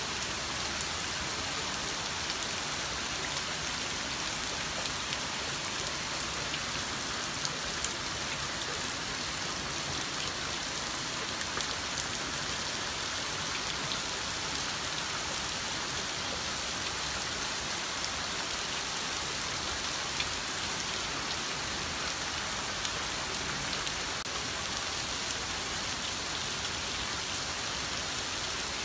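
Heavy typhoon rain falling steadily: a dense, even hiss of rain on the ground, with a few sharper drop ticks now and then.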